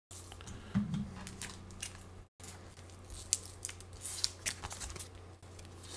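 Scotch tape on a cardboard shipping box being cut and picked open by hand: an irregular string of sharp snips, crinkles and crackles.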